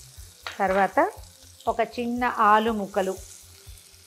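Spices frying in hot oil in a steel pressure cooker, sizzling as diced carrot and potato pieces are dropped in.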